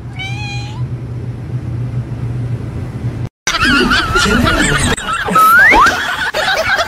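A cat meows once, briefly, at the start over a steady low hum. About three seconds in, louder warbling, wavering pitched sounds follow, with two quick rising whistle-like glides a little after the middle.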